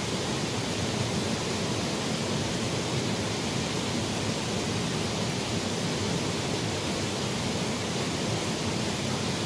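Steady rush of a small stream's flowing water, an even hiss with no breaks.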